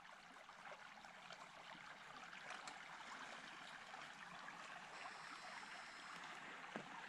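Faint, steady babbling of a small open creek flowing between snowbanks.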